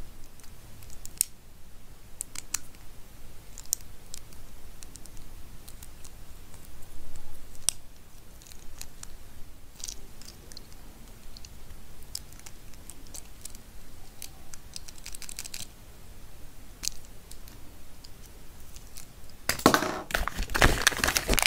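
Small plastic clicks and ticks as fingers handle a tiny plastic Kinder Joy toy figure. Near the end comes a louder, denser burst of plastic rattling and crinkling, as the plastic Kinder Joy egg capsules are moved about.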